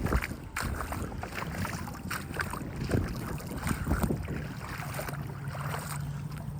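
Footsteps sloshing and splashing through shallow floodwater on a grass field, irregular steps, with wind buffeting the microphone. A low steady hum comes in during the last second or two.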